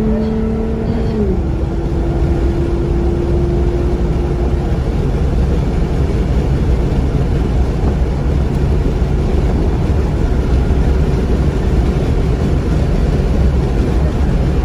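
Car engine and tyre noise at speed, heard from inside the cabin: a steady low rumble throughout. An engine tone drops in pitch about a second in and fades out a few seconds later.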